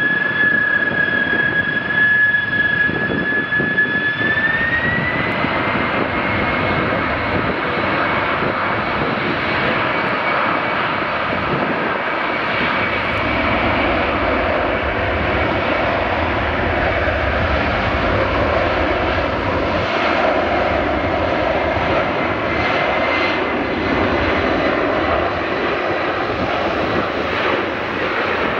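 Boeing 747-400's four jet engines at takeoff thrust during the takeoff roll: loud, steady jet noise under a high whine that rises in pitch about five seconds in, then holds steady.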